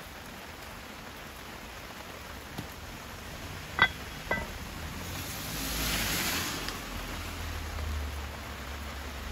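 Two quick ringing metallic clinks about four seconds in as a square black frying pan is set down. Under them, steady light rain, with a brief swell of hiss about six seconds in.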